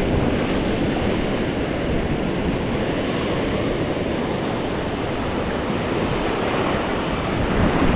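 Ocean surf breaking and washing up the beach, a steady rushing wash of waves.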